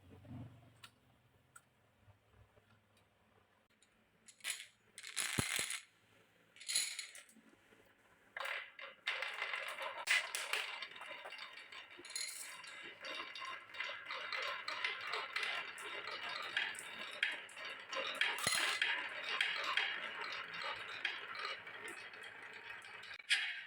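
Glass marbles rolling and clicking down a rain-gutter and wooden-rail marble run: a few separate clicks at first, then from about eight seconds in a dense, continuous clatter of many marbles running together.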